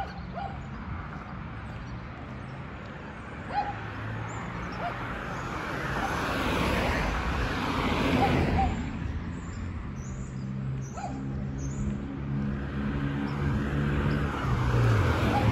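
Suburban street traffic: a car passes by, loudest around the middle, then another vehicle's engine hum comes in and holds toward the end. Faint short calls sound now and then in the background.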